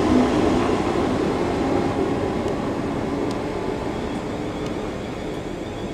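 Southern Class 313 electric multiple unit pulling away and receding, its running sound fading steadily.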